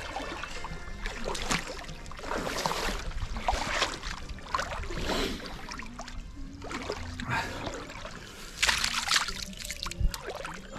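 Lake water sloshing and splashing around a person's body as he wades waist-deep into icy water, in irregular strokes, a loud splash about nine seconds in.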